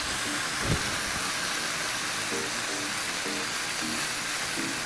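Bite-sized chicken pieces sizzling steadily in hot olive oil in a nonstick frying pan, with one light knock less than a second in.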